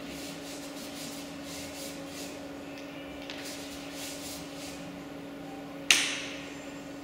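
Soft, repeated swishing strokes of a brush over wet watercolour paper, over a steady low hum. A single sharp tap, the loudest sound, comes near the end.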